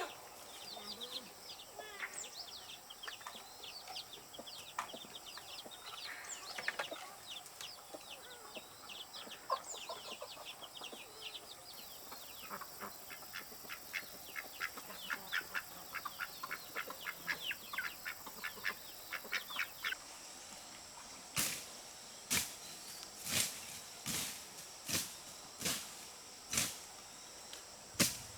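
Birds chirping in quick runs of short, high cheeps. Then, in the last several seconds, about nine sharp knocks come one after another, each less than a second apart.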